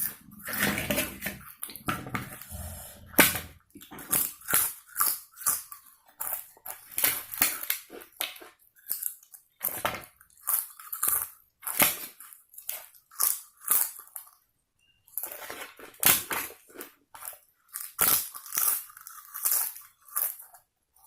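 A person chewing mouthfuls of egg biryani and chicken kosha close to the microphone: wet mouth and chewing sounds about two a second, with a short pause a little past the middle.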